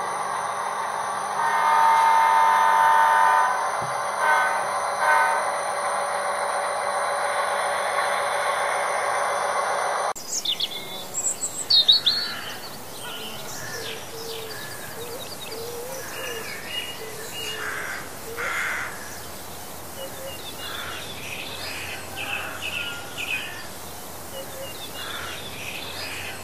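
A model locomotive's DCC sound decoder plays EMD diesel sound through its small speaker, with a louder chord-like tone for about two seconds near the start. It cuts off abruptly about ten seconds in, and birds chirp for the rest.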